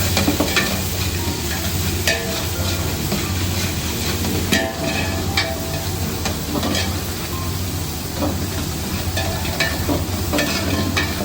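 Onions, tomatoes and tomato paste sizzling as they fry in a pot, stirred with a ladle that knocks and scrapes against the pot now and then. A steady low hum runs underneath.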